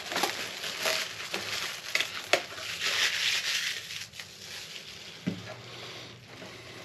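Plastic packaging being pulled off and crumpled by hand: a run of crinkling and crackling with a few sharp clicks, busiest in the first four seconds and dying down after.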